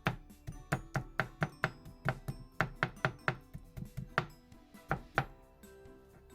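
Kitchen knife chopping on a cutting board, quick strokes about four a second that stop about five seconds in, over background music.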